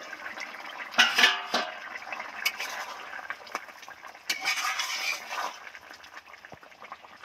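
Metal lid lifted off an iron karai and put down with a clatter about a second in, then a thick vegetable curry simmering in the open pan: a soft bubbling hiss with a few sharp pops and a louder stretch of bubbling near the middle.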